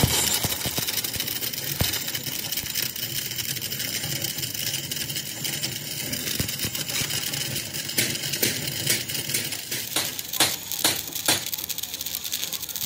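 Arc welding on steel: a steady crackling hiss that starts abruptly, with several sharp metallic clicks about ten seconds in.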